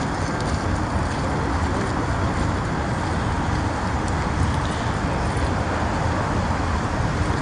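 Steady rumble of a freight train of tank cars rolling past across the water, with a few faint clicks from the wheels on the track.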